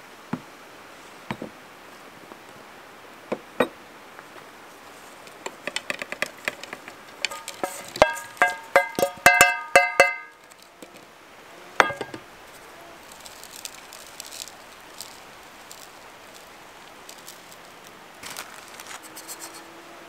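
A wooden spoon scraping and knocking on a metal frying pan as fried bread cubes are pushed out onto a ceramic plate. Scattered clicks and knocks, then near the middle a quick run of about a dozen ringing knocks over two seconds, and one more clatter shortly after.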